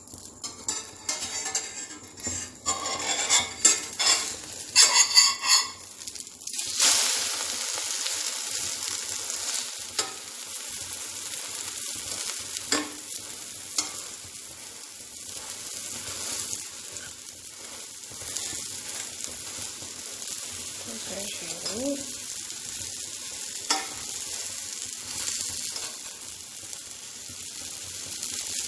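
A steel spatula scrapes and clatters against a stainless steel frying pan for the first several seconds as an omelette is loosened and turned over. About seven seconds in, a steady sizzle of the egg frying in hot oil takes over, with a few sharp taps of the spatula on the pan.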